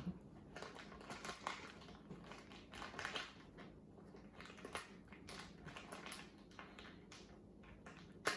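Kinetic sand being squeezed and worked by hand: soft, irregular crunching and crumbling with many small grainy crackles, with a light knock at the very start and another near the end.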